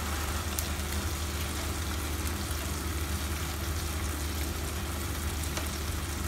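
Boneless chicken in masala sizzling in a frying pan, a steady hiss over a constant low hum.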